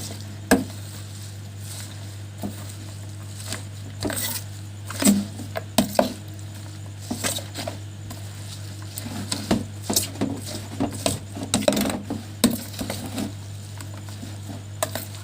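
Cutlery clinking and scraping against dishes in irregular short clatters, over a steady low hum.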